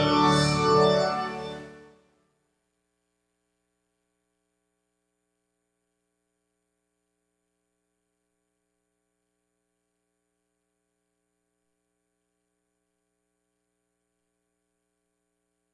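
Church organ holding the final chord of a hymn, dying away about two seconds in, then silence.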